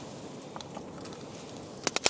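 Campfire burning with a steady low hiss, and two sharp crackles near the end.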